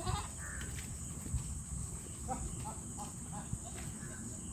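Goats bleating faintly: a call at the start, then a run of short calls about halfway through, over a low rumble.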